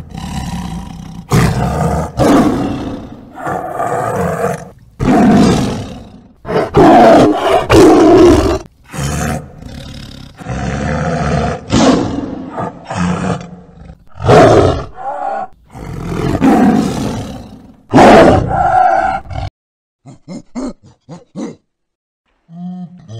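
Tiger roaring over and over, loud roars about a second apart, the series ending about twenty seconds in.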